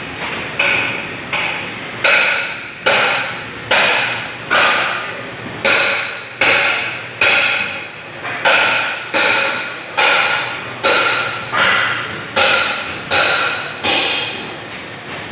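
Repeated sharp metallic knocks, about one a second, each ringing briefly at the same few pitches before dying away.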